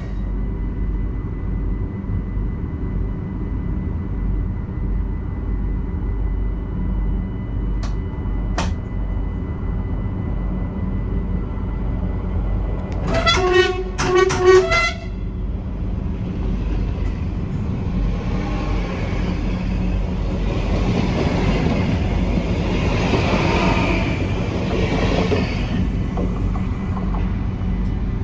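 Train rumbling along the track, with two short horn blasts about halfway through; the noise of the passing train swells in the second half.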